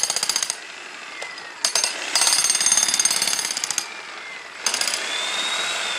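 Jackhammer hammering into the ground in bursts: a fast, rattling run of blows that stops about half a second in, a short burst a little later, a longer run from about two to four seconds, then a steadier, less rattling noise near the end.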